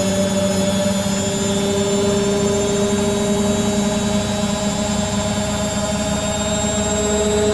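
Beko WTG620M1 washing machine's motor running with a steady whine that slowly rises in pitch, as the drum speeds up in a spin.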